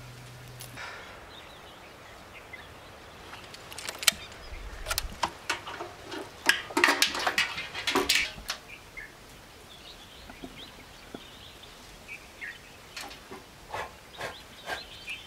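Sharp metallic clicks and rattles of keys and the fuel filler cap being handled on a motorcycle tank, heaviest in the middle, with a few more clicks near the end. Faint bird chirps sound in the background.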